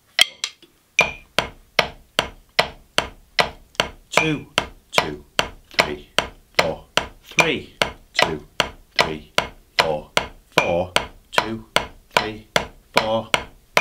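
Drumsticks striking a practice pad in a single stroke roll, right and left hands alternating, played as even eighth notes at 75 BPM, about two and a half strokes a second. The strokes begin about a second in.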